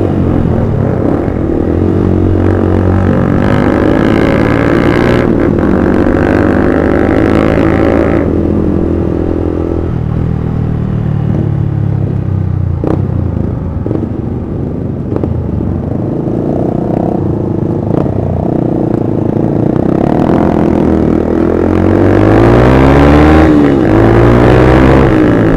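Sport motorcycle engine running under way, its pitch climbing as it accelerates through the gears several times. The throttle eases off about eight seconds in, and the loudest climb comes near the end.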